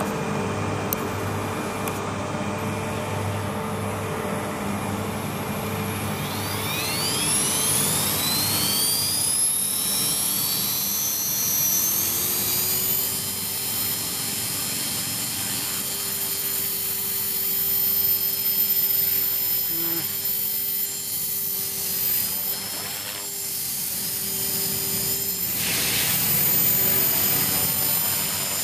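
Electric RC helicopter (Align T-Rex 450 Pro) spooling up: the brushless motor and rotor head whine rises steeply in pitch from about six seconds in. It then holds a steady high whine as the helicopter lifts off and hovers, with small swells in pitch and level as it is flown.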